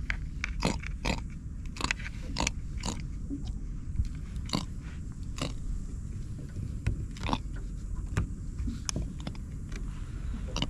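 A barred javelin (grunter fish) out of the water grunting, a string of short, sharp, crackly clicks at uneven intervals, about fifteen in ten seconds.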